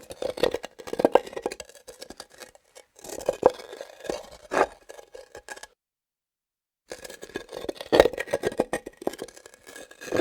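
Hard objects scraped, rocked and knocked against granite, in clusters of clicks and rubbing scrapes, with the strongest knock about eight seconds in. A second of dead silence falls a little past the middle.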